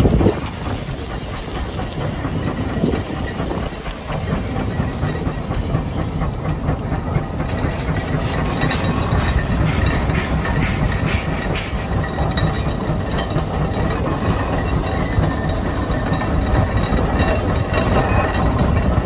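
The 150 Case steam traction engine running under heavy load as it pulls a 44-bottom plow: steady mechanical clatter from its gearing and drive wheels with steam hiss over it. There is a low thump right at the start and a few sharper bursts of hiss about halfway through.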